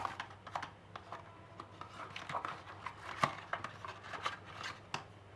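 Hands handling a phone's accessories and packaging from its retail box: irregular light clicks, taps and rubbing, the sharpest about three seconds in.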